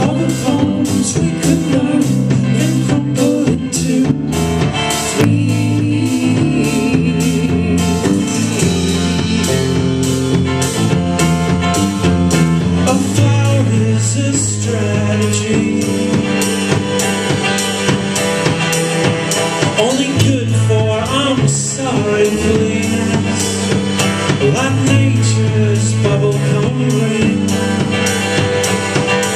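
A folk-rock band playing live: strummed acoustic guitar, electric bass, cello and drum kit, with quick ticking cymbal strokes through roughly the first eight seconds.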